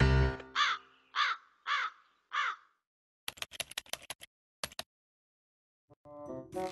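A crow cawing four times, evenly spaced, each caw a short call that rises and falls in pitch. After it comes a quick run of sharp clicks, then two more.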